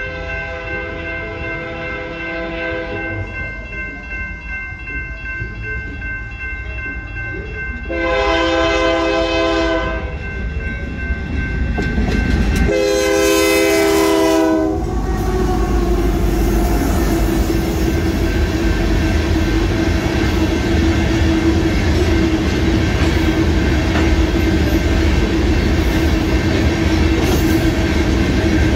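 Union Pacific freight locomotive sounding its horn for a grade crossing: one blast ends about 3 s in, then two more come about 8 and 13 seconds in, the last the loudest. The crossing's warning bells ring behind them. From about 15 seconds the locomotive passes and the loaded rock cars rumble over the crossing with a steady hum and wheel clickety-clack.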